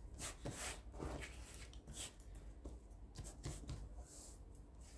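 Hands shaping a ball of bread dough on a silicone baking mat: faint, irregular rubbing and soft pats of skin against dough and mat.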